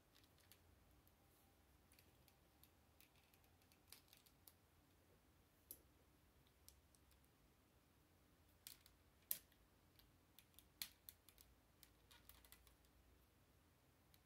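Faint, irregular clicks of plastic Lego bricks being handled and pressed together on a model, the loudest about nine seconds in.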